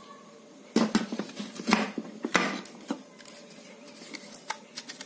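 Plastic and metal parts of a disassembled hot air gun knocking and rattling as its motor and heating-element assembly is handled, with several sharp knocks in the first three seconds and lighter clicks after.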